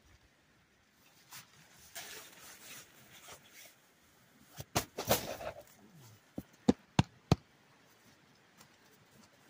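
Nylon tent fabric and a stuffed sleeping-bag sack rustling and scuffing as they are handled, with a louder scuffle about five seconds in. Then three sharp knocks in quick succession, about a third of a second apart.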